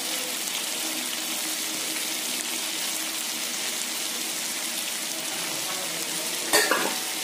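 Radish pieces frying in oil in a pan, a steady sizzle, with a brief louder sound near the end.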